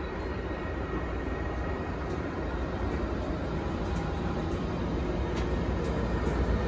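Freight train of tank wagons rolling past behind a Siemens Vectron electric locomotive: a steady low rumble of wheels on rails that grows slightly louder, with a few faint clicks.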